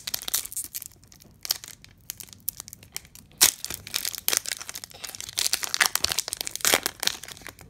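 Foil wrapper of a Pokémon trading card booster pack crinkling and tearing as it is pulled open by hand, in irregular crackles with a few sharper rips, the loudest about halfway through and near the end.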